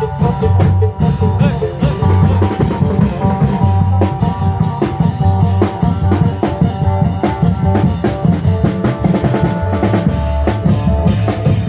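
Live Isan klong yao (Thai long drum) band playing a fast, continuous drum rhythm with deep drum thuds, under a sustained melody line.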